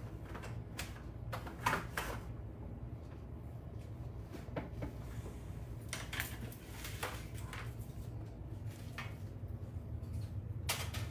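Kitchen handling sounds: scattered knocks and clinks of plates and a baking tray being moved about on a counter, the sharpest knock about two seconds in, over a steady low hum.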